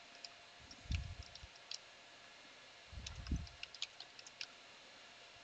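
Computer keyboard keys clicking faintly in scattered keystrokes as an IP address is typed, with two low dull bumps about one second and three seconds in.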